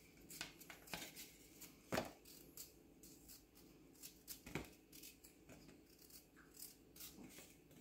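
Small knife peeling a raw potato: faint, irregular scraping clicks as the blade cuts through the skin, with two louder ones about two seconds and four and a half seconds in.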